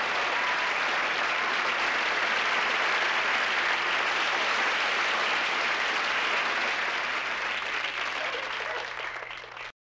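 Crowd applauding in a steady, dense wash of clapping that thins over the last couple of seconds and cuts off abruptly near the end.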